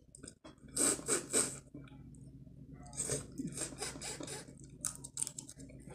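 Close-up eating sounds: a person chewing seafood, with mouth noises in a few short crackly bursts, about a second in and again around three and five seconds.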